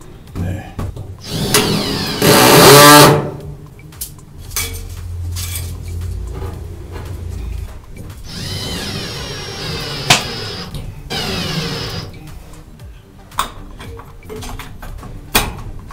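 Cordless drill-driver driving screws into a wooden roof rafter to fix the light's mounting clips: one loud run a couple of seconds in, and another, broken by short pauses, about halfway through.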